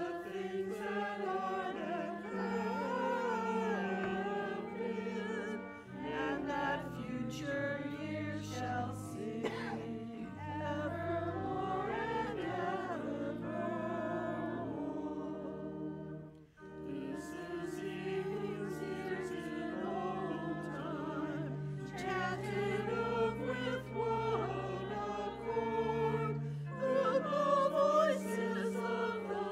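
Mixed church choir singing an anthem, with a short break between phrases about halfway through.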